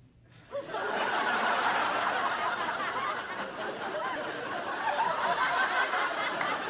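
Studio audience laughing and cheering, rising suddenly about half a second in and holding steady.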